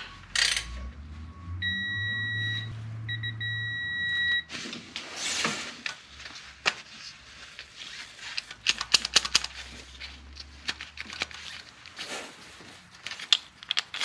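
Two steady, high electronic beeps, each about a second long with a short gap between them, followed by a run of sharp metallic clicks and taps as tools work on the timing-chain guides and bolts of the engine.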